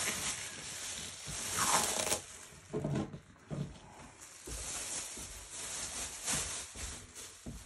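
Thin plastic shopping bag crinkling and rustling as it is peeled off wet spray paint and put aside, followed by lighter irregular rustling and handling sounds.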